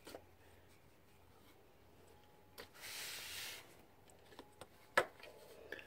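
Faint handling sounds of a rubber V-belt being worked by hand onto engine pulleys: about a second of rubbing scrape near the middle, and a few sharp clicks, the loudest about five seconds in.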